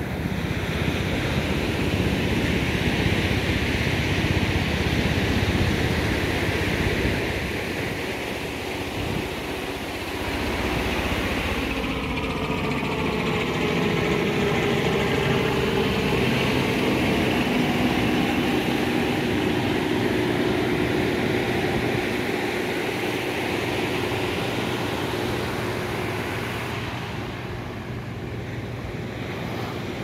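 Surf washing in on a sandy beach in a steady rush. From about twelve seconds in, an engine hum passes through, its pitch sweeping as it goes by, and fades out near the end.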